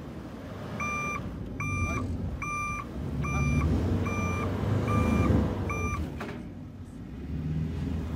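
A vehicle's reversing beeper sounds about seven times, one beep roughly every 0.7 s, over idling engines during a snow recovery with a tow strap. The beeping stops about two seconds before the end.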